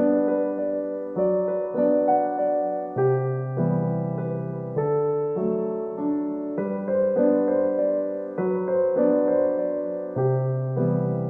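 Slow background piano music: notes and chords struck about once a second and left to ring and fade.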